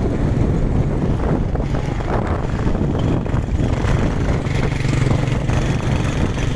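Small motorbike engine running steadily while riding, with wind rushing over the microphone.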